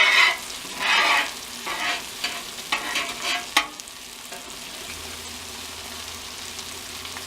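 Metal spatula scraping and lifting onions off the steel top of a Blackstone 36-inch griddle, a run of scrapes ending in a sharp tap about three and a half seconds in. Steady sizzling of food frying on the griddle follows.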